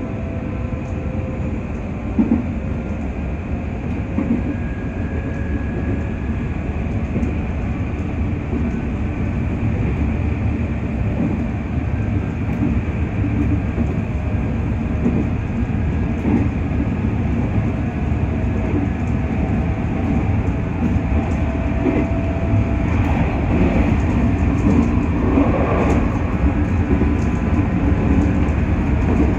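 Running noise of a JR West 221 series electric train heard from on board: a steady rumble of wheels on rail with faint whining tones and scattered clicks, and a sharp knock about two seconds in.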